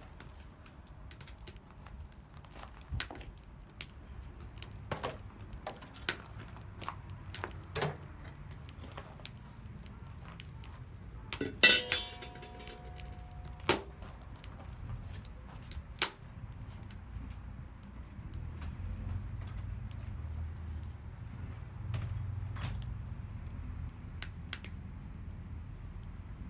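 Metal cookware and utensils clinking and knocking at irregular intervals. About halfway through comes one louder clang that rings briefly.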